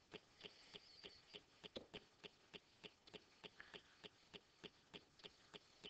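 Faint, steady ticking, about four evenly spaced ticks a second.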